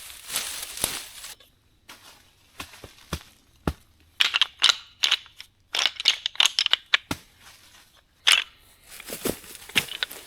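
Irregular crunching and crackling of dry leaves and twigs, in uneven clusters with short pauses between them.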